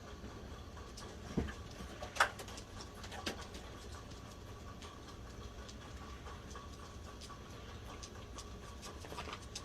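A cat climbing and moving about: faint scattered taps and rustles over a low room hum, with three sharper knocks in the first few seconds, the middle one loudest.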